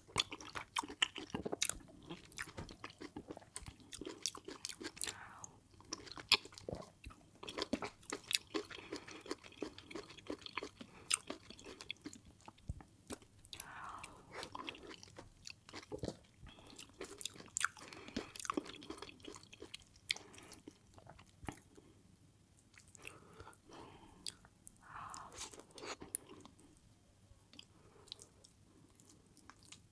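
Close-miked eating sounds: a person chewing and smacking their lips over fufu with soup, with many sharp wet clicks and the odd crunch.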